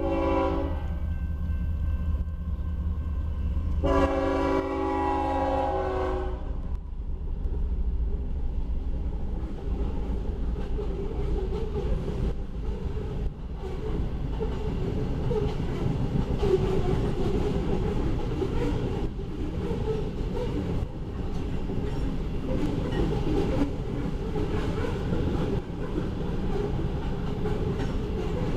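Horn of the leading GE ES44C4 diesel locomotive sounding, one blast ending just after the start and another about four to six and a half seconds in, over the low drone of the locomotive diesel engines. From about seven seconds on, loaded grain hopper cars roll past with a steady rumble and wheel clatter.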